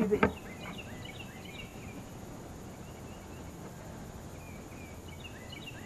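Quiet outdoor pond ambience: a steady hiss with faint, scattered high chirps in two short clusters, one early on and one near the end.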